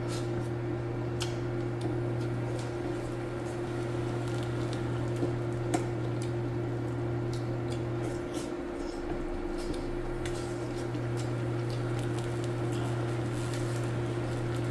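Close-up eating sounds: wet chewing and lip smacks with scattered short mouth clicks as a person eats fish soup and rice by hand. Under them runs a steady low electrical hum that drops out for about two seconds midway, then comes back.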